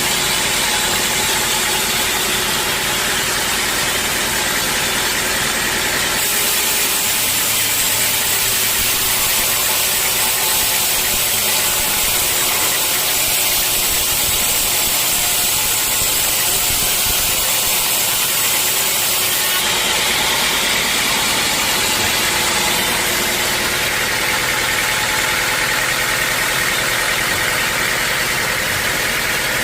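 Sawmill machinery running steadily. From about six seconds in until about twenty seconds the sound turns into a brighter, higher hiss, then settles back.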